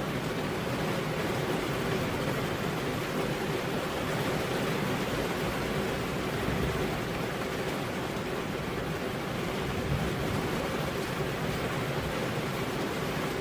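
Steady rain, an even hiss that holds at the same level throughout.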